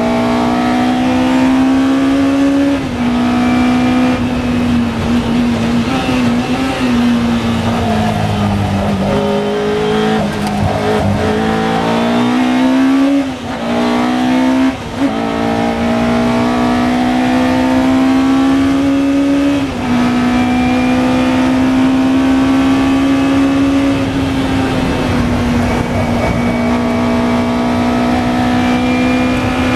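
Lola T292 sports racing car's engine heard onboard at racing speed, pulling through the gears with upshifts about three seconds in and again near the end. Around the middle the revs fall as the car slows for a corner, with two short flicks of the revs and two brief dips, before it accelerates hard again.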